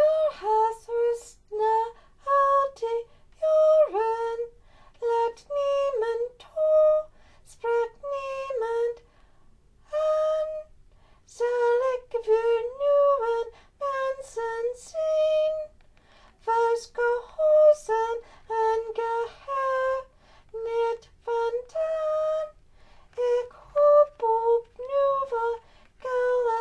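A high female voice singing unaccompanied: a string of short, high notes with brief pauses between phrases, and no instrumental backing.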